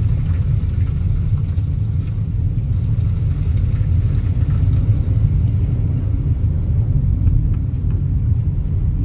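Steady low rumble of a car driving on a wet road, heard from inside the cabin: road and tyre noise with the engine underneath.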